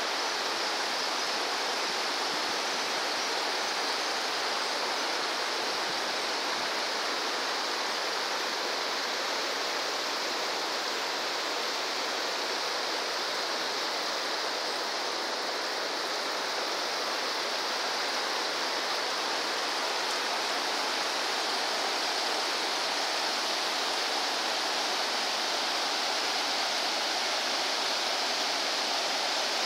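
Shallow river rushing over a stony bed in small rapids, a steady, unbroken rush of water.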